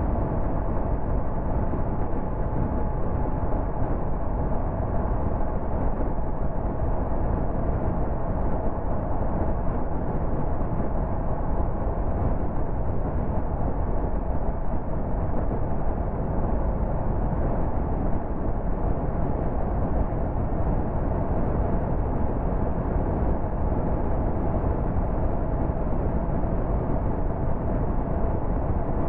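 Steady road noise of a car cruising at motorway speed: a low rumble of tyres and engine, with a faint steady hum, unchanging throughout.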